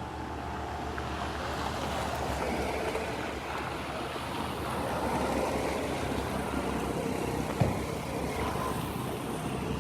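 Steady rushing noise of road traffic going past, with a single short knock about three-quarters of the way through.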